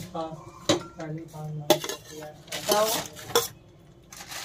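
A metal spoon clinking and scraping against an aluminium cooking pot while spreading parboiled rice for biryani, with several sharp metallic knocks.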